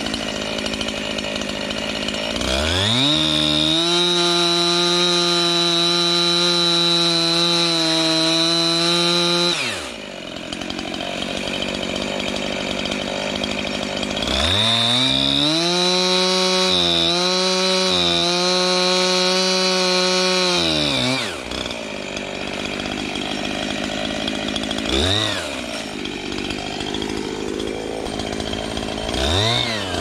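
Husqvarna 345 two-stroke chainsaw with a 20-inch bar cutting into a dead elm log. It idles, then revs up to full throttle for about seven seconds, drops back to idle, and revs again for about six seconds with brief dips as the chain bites. It gives a short blip about 25 seconds in and revs up again near the end.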